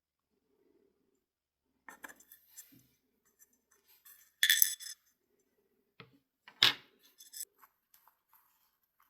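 Small metal clicks and scrapes of watch parts and hand tools being handled on a workbench during disassembly. A louder half-second scrape comes a little before halfway, and a sharp click about two seconds later.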